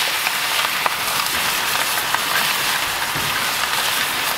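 Butter, garlic cloves and rosemary sizzling hard around two steaks in a very hot cast iron skillet, a steady sizzle with a few small pops.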